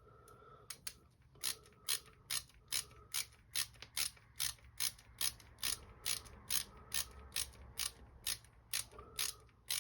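Screwdriver handle with a hex bit tightening an M3 bolt into a carbon quad frame. It gives a sharp, regular click about two or three times a second.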